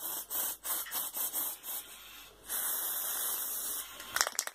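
Aerosol can of temporary hair colour spray hissing in several short spurts, then one longer spray of about a second and a half. Quick rattling clicks follow near the end.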